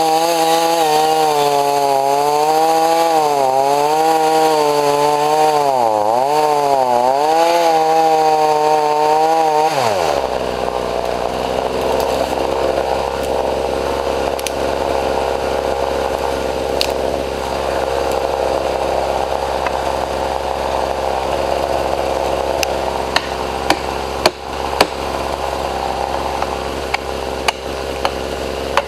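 Chainsaw cutting into a large white pine at full throttle, its pitch dipping and recovering as the chain loads in the cut. About ten seconds in it stops abruptly, leaving a duller steady noise, with sharp knocks toward the end.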